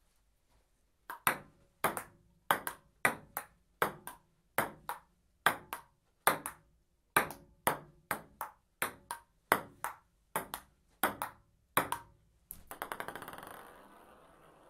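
Table tennis rally: a celluloid ping-pong ball clicking back and forth off paddles and the table in a steady rhythm, starting about a second in. Near the end the ball bounces faster and faster and rattles to rest.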